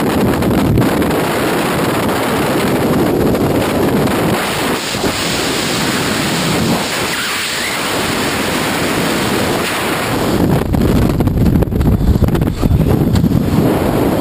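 Freefall airflow buffeting the camera's microphone, a loud, steady rush of wind. It swells and becomes more gusty in the last few seconds.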